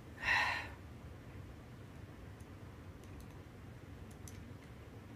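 A short breathy sigh near the start, then a few faint, sharp clicks of plastic Lego pieces being handled and fitted together.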